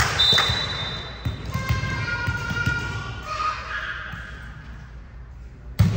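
A volleyball thudding and bouncing on a gym floor: several low thuds in the first half and a sharp, loud hit near the end, with faint voices around.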